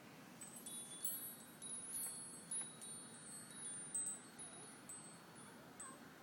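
Wind chime tinkling: irregular high, ringing strikes at a few fixed pitches, starting about half a second in and dying away near the end.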